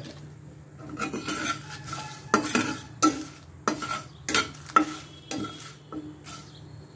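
Stainless steel spatula stirring and scraping whole cumin, fennel and coriander seeds and dried red chillies around a dry frying pan, in irregular strokes about one or two a second, some with a short metallic ring. The spices are being dry-roasted without oil.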